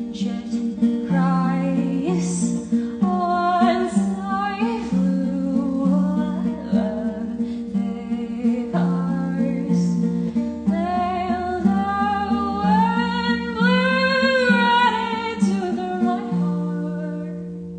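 Acoustic guitar picked and strummed with a solo voice singing over it, the music starting to fade near the end.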